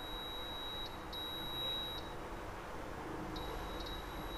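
Air fryer oven's touch control panel beeping as its buttons are pressed to set the cooking time: a thin high beep tone that comes and goes several times.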